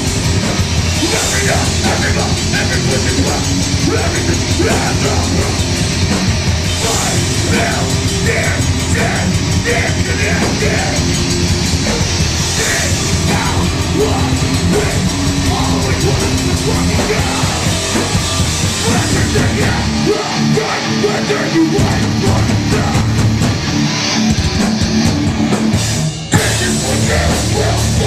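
Hardcore band playing live and loud: distorted guitar and bass, pounding drum kit, and a vocalist yelling into the microphone. The band stops for a split second near the end, then crashes back in.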